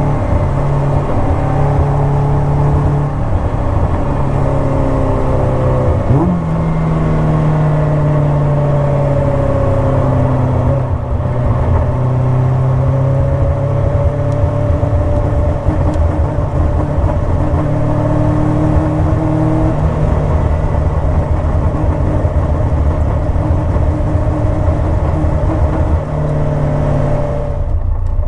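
Car engine running, its pitch slowly rising and falling with engine speed. The owner suspects the car is misfiring because of a coolant temperature fault.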